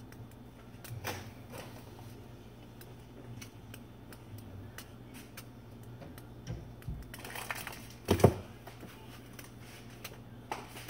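Rummaging in a wooden kitchen cupboard: light clicks and rustles of packages and containers being moved on the shelf, then a louder clatter about eight seconds in as the cabinet door is shut.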